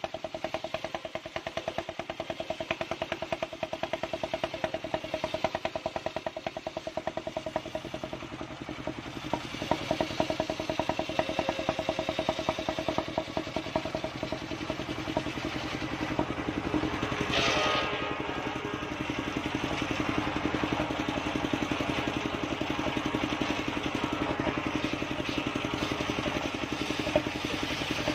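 Engine-driven table circular saw running with a steady, fast pulsing beat while a mindi (chinaberry) log is fed along its blade; a little past halfway the blade bites into the wood with a brief, harsher, hissing cutting noise.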